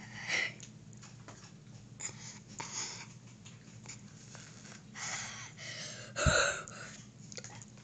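A boy breathing hard through his open mouth in a series of short, wheezy huffs and gasps from the burn of a jalapeño pepper in his mouth and throat. The loudest gasp comes near the end with a brief low thump.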